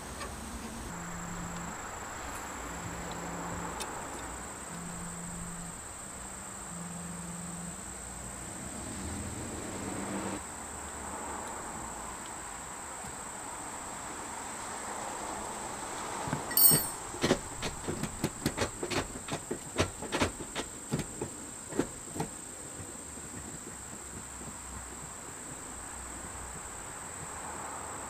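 Crickets trilling steadily at a high pitch. Past the middle comes a run of about a dozen sharp metallic clicks and taps over some five seconds, the first the loudest, as the short shifter's metal parts are handled and fitted.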